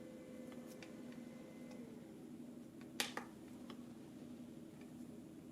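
A sharp click of a plastic button on a digital alarm clock about three seconds in, with a smaller click just after, and a few faint ticks earlier, over a steady low hum.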